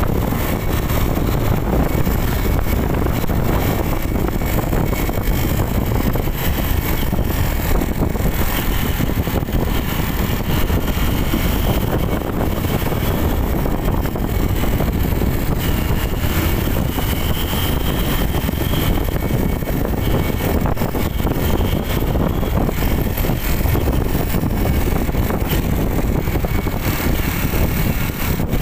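Motorcycle being ridden in traffic: steady engine and road noise with wind on the microphone.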